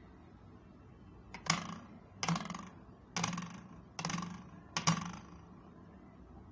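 Toy hammer striking the free end of a ruler held down at its other end, five taps about a second apart, each followed by a short buzz as the ruler vibrates.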